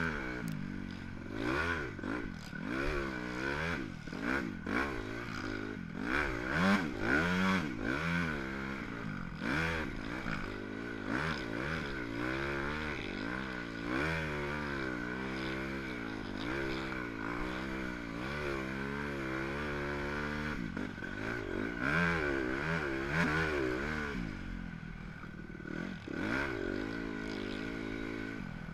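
Dirt bike engine heard from on board, revving up and down again and again as the throttle opens and closes through the turns, then holding a steadier note for several seconds past the middle before rising and falling again.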